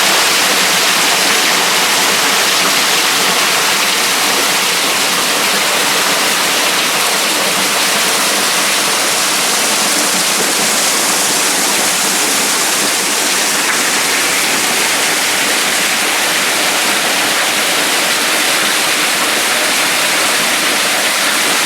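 Spring-fed waterfall rushing steadily, water pouring over rock into the stream below.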